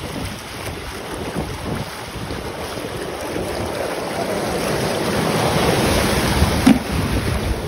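Shallow beach surf washing and swirling around, with wind buffeting the microphone; the wash grows steadily louder toward the end.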